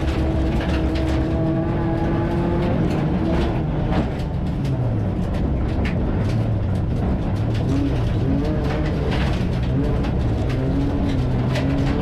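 Rallycross car's engine running hard, heard from inside the cabin. Its note drops briefly about four seconds in, then rises and falls with the throttle, while gravel and stones rattle against the car's body in many sharp clicks.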